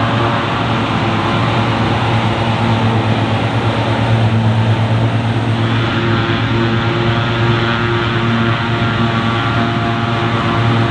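Large diesel farm machinery running steadily under load, a constant engine hum with a dense stack of higher tones over it.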